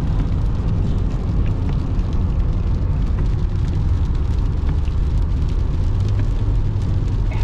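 Steady low road and engine rumble heard inside a moving car, with faint scattered ticks over it, in heavy rain.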